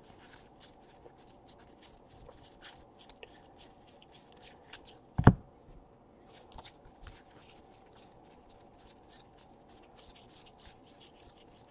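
Donruss baseball cards being thumbed through one at a time: a quiet, rapid run of papery flicks as each card slides off the stack, with one dull thump a little past five seconds in.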